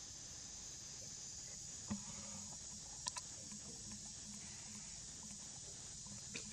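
Steady high-pitched drone of insects in forest ambience, with a few faint short clicks about two and three seconds in.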